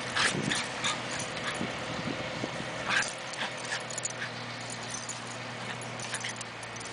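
Cairn terriers play-fighting: short, scattered dog noises, most frequent in the first second and again around three seconds in, thinning out over the last few seconds.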